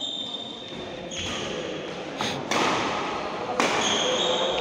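Badminton rally on a wooden indoor court: rackets strike the shuttlecock with sharp smacks, three within about a second and a half in the second half, echoing in the hall. Shoes squeak briefly on the floor near the start and again near the end.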